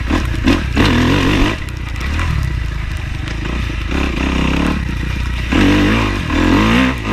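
Dirt bike engine being ridden, the revs rising and falling with the throttle, easing to a lower, steadier note through the middle and climbing and dropping again near the end.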